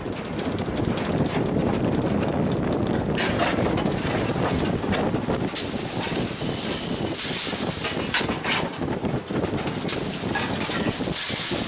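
Baldwin steam locomotive hissing steam over a steady low rumble. The hiss comes in about three seconds in and gets loud around halfway, then dips briefly before a second loud stretch near the end.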